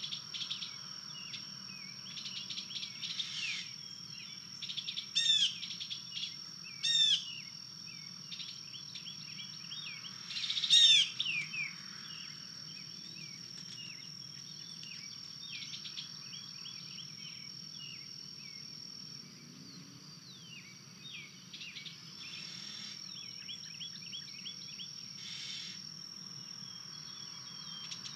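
Woodland birds chirping and singing over a steady high-pitched insect drone. Three louder, short down-slurred calls stand out, about five, seven and eleven seconds in.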